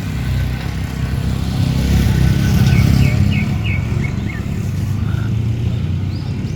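Low, steady rumble of a motor vehicle's engine and road noise, swelling briefly about two to three seconds in.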